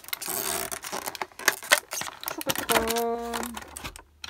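Stiff clear plastic blister packaging crinkling and crackling as it is handled and flexed, in quick irregular clicks. About three seconds in a short steady hum-like tone sounds under it.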